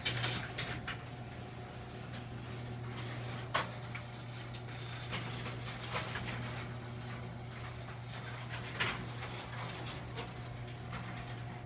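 Liftmaster 1/3-horsepower garage door opener running as it closes the door: a steady motor hum with scattered clicks and rattles, cutting off near the end.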